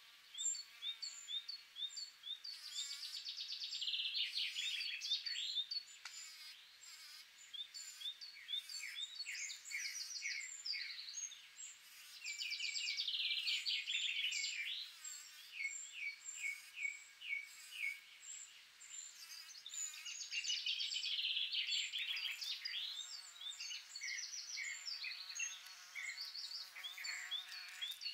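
Songbirds chirping and trilling throughout, many short high notes overlapping. In the last few seconds a bumblebee's faint, wavering buzz comes in underneath.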